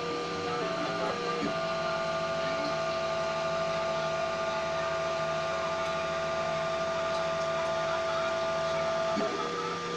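3D printer's stepper motors whining steadily as the print head moves. The pitch shifts a few times near the start, then holds on one tone for several seconds before changing again near the end.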